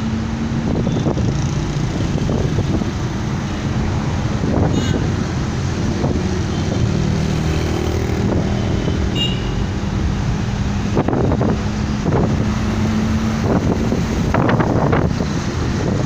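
Traffic and wind noise recorded from a moving vehicle on a city street: a steady engine hum under a constant rush of wind on the microphone, with louder gusts near the end.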